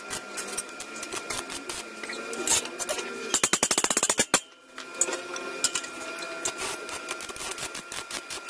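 Stick (arc) welder crackling and sputtering as the electrode burns along a steel tube joint. About three and a half seconds in comes a quick run of rapid sharp taps lasting about a second, then a brief pause before the arc crackles again.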